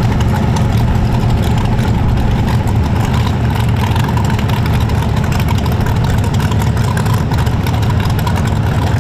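Modified Chevrolet Silverado pickup's engine idling loudly and steadily, with no revving, as the truck rolls slowly forward to stage.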